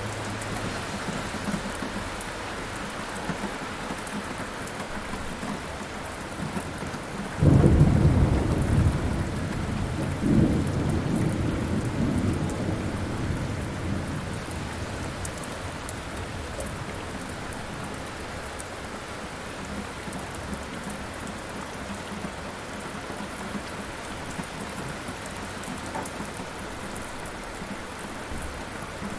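Steady rainfall with a thunderclap about seven seconds in that rumbles on, swells again a few seconds later and fades out, leaving the rain.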